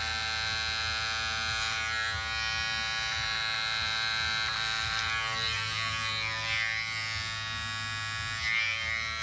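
Electric hair clippers running with a steady buzz while cutting through a full beard on the cheek.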